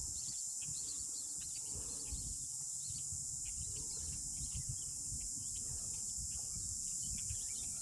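Outdoor lakeside ambience: a steady high buzz of an insect chorus, with scattered short bird chirps and a low rumble underneath.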